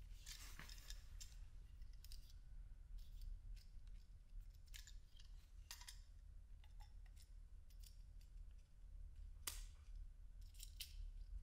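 Faint, scattered clicks and rustles of small hard plastic car trim parts being handled and unwrapped from paper, over a low steady hum.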